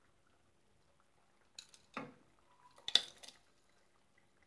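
A few short knocks and scrapes of a plate against a cooking pot as lumps of jaggery are tipped into the curry, the loudest clatter about three seconds in.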